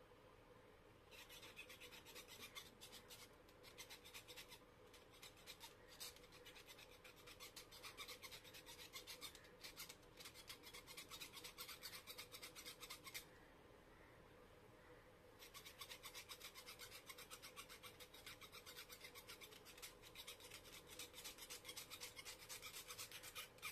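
A small hand blade is rapidly scraping the steel shaft of an old ceiling fan's stator, a fast, dry rasping. It comes in two long spells with a short pause about halfway.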